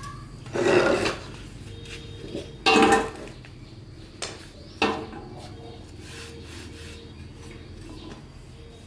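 Metal parts and tools being handled: two short bursts of clattering and scraping, then two sharp knocks, over a faint steady low hum.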